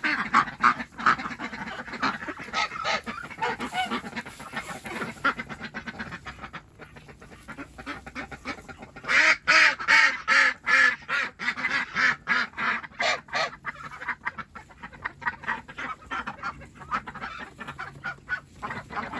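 Geese honking and ducks quacking together in a housed flock, in quick, dense runs of calls, loudest for a few seconds starting about nine seconds in.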